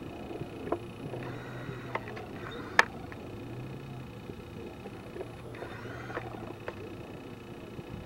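Steady outdoor background noise with a faint low hum that comes and goes, and a few scattered light clicks, one sharp click a little under three seconds in.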